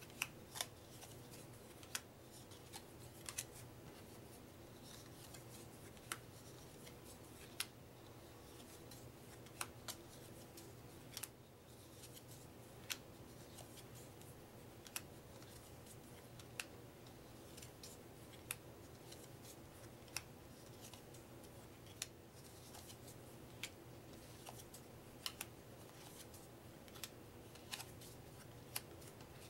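UNO playing cards handled one at a time, each card laid or flicked onto the pile with a short sharp click, about every one to two seconds, over a faint steady hum.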